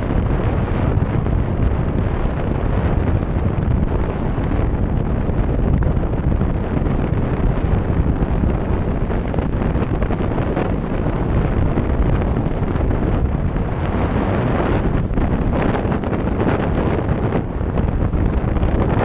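Steady wind rush buffeting the microphone of a camera mounted on a motorcycle at highway speed, mixed with the bike's engine and tyre noise.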